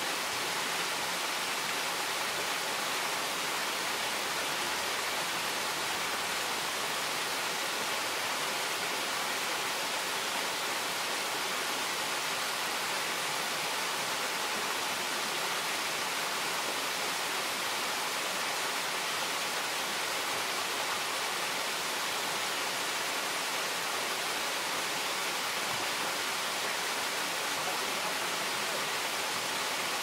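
Waterfall of many thin streams falling from a mossy overhang and splashing into a pool, making a steady, even hiss of falling water.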